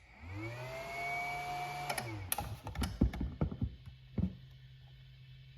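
Greenworks battery charger starting up with a whine that rises in pitch, holds for about two seconds and falls away as it shuts off, a battery that won't take a charge. Then several plastic clicks and knocks as the battery is pulled and reseated, and a steady low hum that cuts off suddenly near the end.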